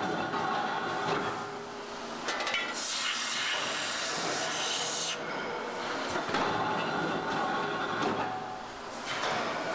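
Forging-shop machinery running with metallic clatter from the press and tools. About three seconds in, a loud hiss lasting about two seconds as a nozzle blasts a spray onto the hot forging die.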